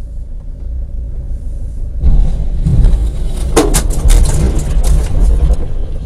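Low rumble of a car, heard through a dashcam inside the cabin, that grows much louder about two seconds in. Then come a run of sharp knocks and crunches for about two seconds, as a car tears through dirt beside the road and throws up a cloud of dust.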